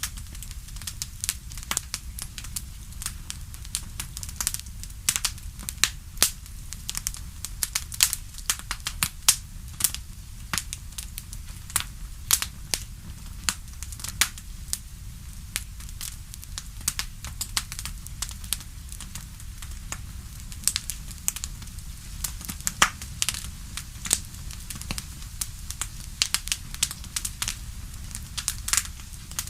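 Wood fire in a fireplace crackling, with many irregular sharp pops and snaps over a low, steady rumble.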